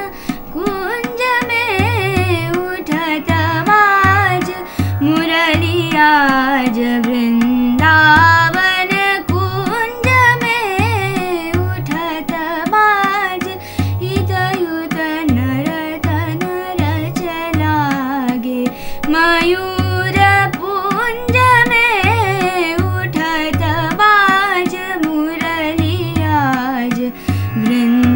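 A woman singing an Indian classical-style melody with sliding, ornamented notes. A steady tabla rhythm accompanies her.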